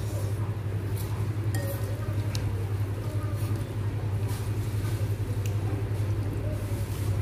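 A steady low hum with a few light clicks of chopsticks against the noodle bowl as the noodles are lifted.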